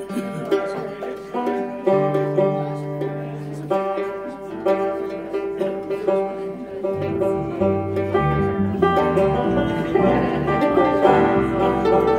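Bluegrass string band playing an instrumental: picked banjo and mandolin over acoustic guitar and electric bass, with the bass notes coming in stronger about halfway through.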